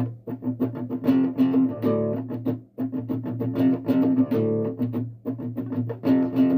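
Guitar music with a steady bass line and quick plucked notes.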